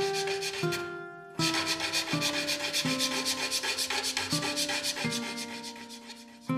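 A plucked string instrument playing a slow line of single notes. From about a second and a half in to about five seconds in, a fast, even scraping or rubbing rhythm of roughly eight strokes a second runs over the notes.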